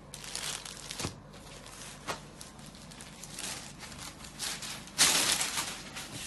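Kanjivaram silk saree being unfolded and spread out by hand: the stiff zari-woven silk rustles and crinkles in uneven bursts, with a light tap about a second in and the loudest rustle about five seconds in.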